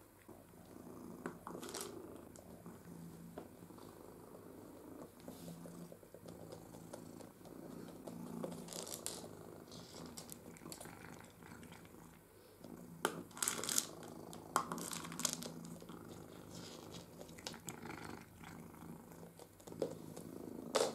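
Cat purring steadily, with scattered clicks and rustles as it noses a plastic ball feeder and toys across the floor.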